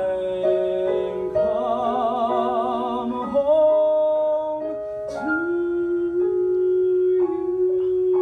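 A solo male voice sings long, held show-tune notes with vibrato over piano accompaniment, ending on one long note held from about five seconds in.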